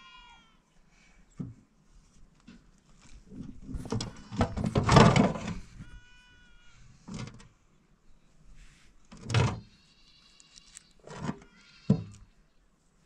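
A shovel scraping and knocking in a metal wheelbarrow tray, a long loud scrape about four to six seconds in, then single knocks spread through the rest. Livestock bleat faintly several times in the background.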